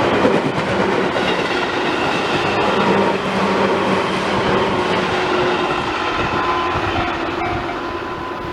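Tobu Tojo Line train running past over the level crossing, its wheels clattering over the rail joints, easing off slightly near the end.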